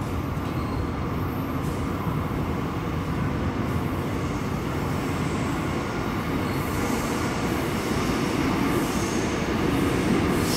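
Metro train approaching through the tunnel behind the platform screen doors: a steady rumble that slowly grows louder, with thin high wheel squeals setting in about two-thirds of the way through.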